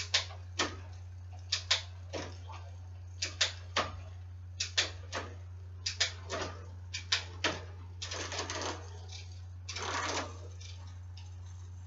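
Shimano XT trigger shifter clicking as the rear gears are shifted one at a time, the Shimano Altus rear derailleur moving the chain across the cassette: sharp clicks, often in pairs, a second or less apart. Twice, around eight and ten seconds in, a short rattle of the chain running over the cogs. A steady low hum runs underneath.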